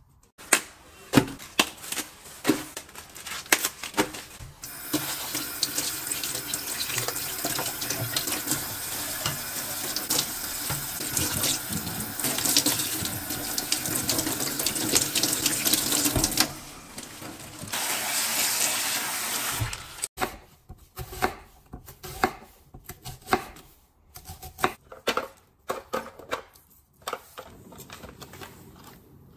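Kitchen tap running into a stainless-steel sink as green onions are rinsed under the stream. The flow lasts about fifteen seconds and drops off briefly once before stopping. Before and after it come scattered light knocks and taps of kitchen handling.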